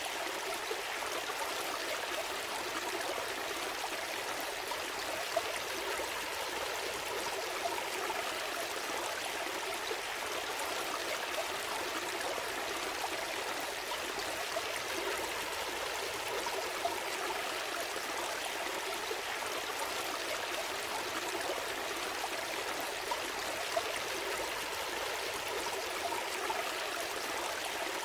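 A gentle stream flowing and trickling steadily, a constant babble of running water.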